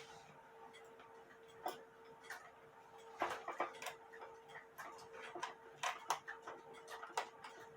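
Irregular small metallic clicks and taps as the brass wheels and parts of an antique cuckoo clock movement are handled with a tool, over a faint steady hum.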